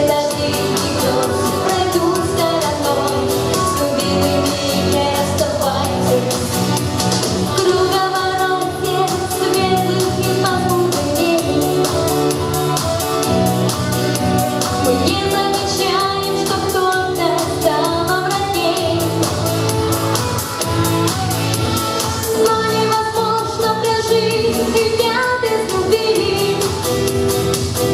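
A song performed live: a solo voice sings the melody over instrumental accompaniment with a steady beat.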